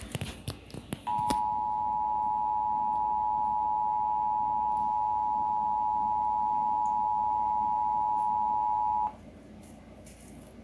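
Emergency Alert System attention signal: a steady two-note tone held for about eight seconds, then cutting off abruptly, the alert that comes before an emergency broadcast message, here a Local Area Emergency. A few sharp clicks come just before it starts.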